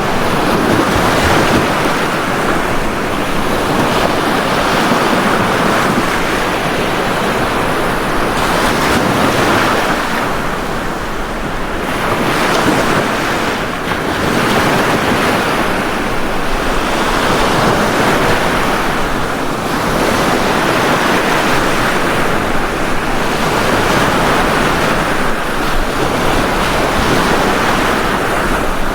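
Ocean waves breaking on a beach, a continuous surf wash that swells and eases every few seconds.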